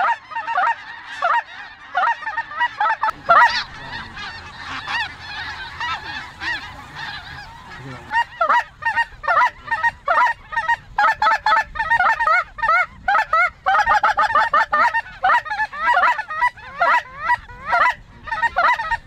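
A large flock of snow geese calling overhead: many overlapping high yelping honks, thinner at first and growing denser and louder about eight seconds in.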